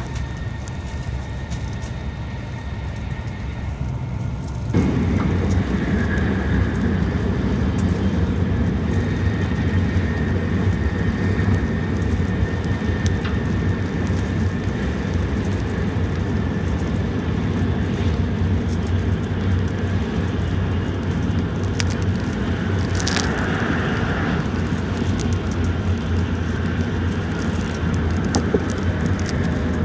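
Shinkansen running at speed, heard inside the passenger cabin: a steady low rumble of wheels and rushing air that gets louder about five seconds in, with a brief hiss about three-quarters of the way through.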